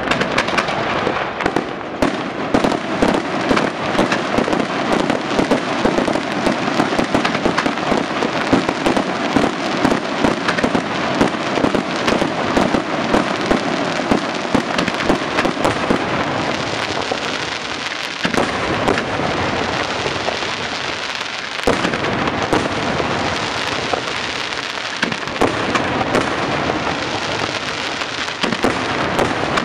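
Daytime fireworks barrage: a dense, unbroken rattle of rapid bangs and crackles from aerial salutes and ground firecrackers, thinning briefly a couple of times past the middle before picking up again.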